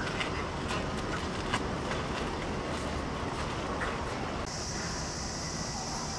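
Outdoor ambience: a steady low rumble with scattered faint clicks. About two-thirds of the way in, a steady high-pitched buzz of summer cicadas comes in.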